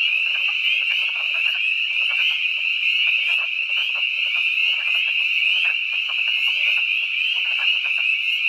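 Breeding chorus of spring peepers and wood frogs: the peepers' high peeps merge into a steady, continuous ringing, with many short, lower clucking calls of wood frogs scattered through it.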